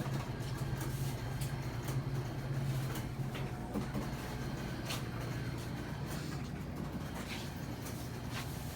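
A steady low hum, with scattered light clicks and rustles of handling.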